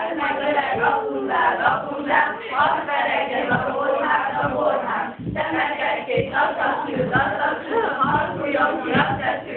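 A group of young male and female voices singing a Christmas song together in chorus.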